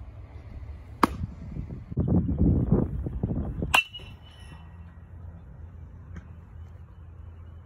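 A sharp pop about a second in, then a couple of seconds of low rumbling noise. Near the middle comes the loud crack of a baseball bat hitting a ball, with a ringing metallic ping after the hit.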